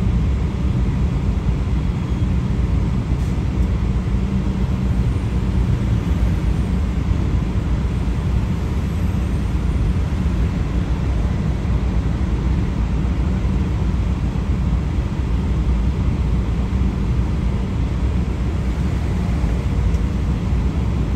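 Steady low rumble of road traffic, with cars and trucks passing through an intersection.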